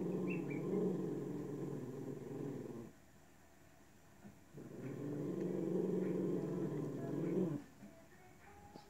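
A Cavalier King Charles spaniel growls low at dogs on a TV screen, in two long growls of about three seconds each with a short pause between. The growls show the dog is wary of the dogs it is watching.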